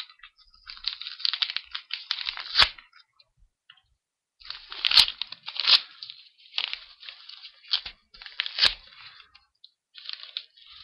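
Package being opened by hand: its packaging torn and crinkled in irregular crackling bursts, with a few sharp clicks and a couple of short pauses.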